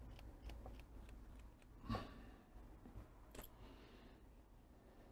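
Near silence with faint small clicks and scrapes of hand work on the enamelled copper winding wire of a soldering-gun transformer, the enamel being scraped off the wire ends, with a louder knock about two seconds in.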